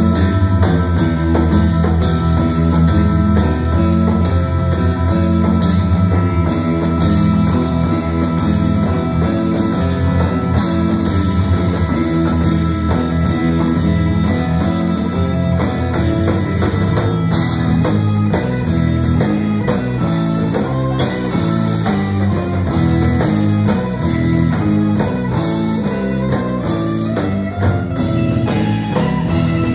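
Live rock band playing a surf-rock medley: electric guitars, electric bass and a drum kit, loud and steady.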